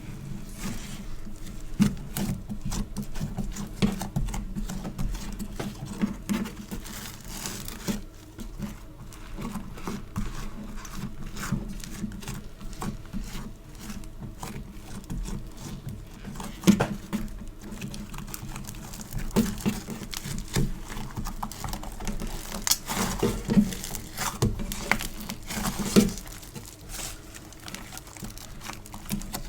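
Sticky slime-type play material being squished and pulled apart by hand: a steady stream of small crackles and sticky pops, with a few louder snaps in the second half.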